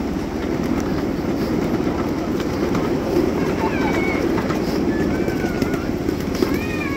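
Steady rumble and clatter of a 7.5-inch-gauge miniature train's wheels running on the track, heard from a passenger car. Short high squeals come through in the second half.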